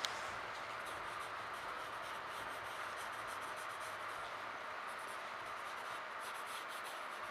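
Pencil scratching on sketchbook paper in short, irregular strokes, over the steady hum of a commuter train's interior. A small click right at the start.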